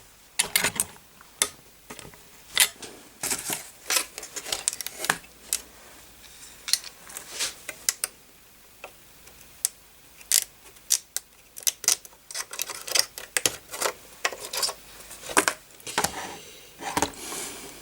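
Irregular light clicks and short scrapes of small metal tools working on a motherboard's bent BIOS chip, straightening it, with pauses between bursts.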